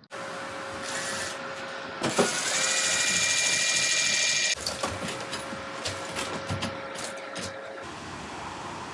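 An electric drill runs for about two seconds, starting after a click about two seconds in, over a steady background hum, followed by a series of sharp clicks and knocks of tool handling.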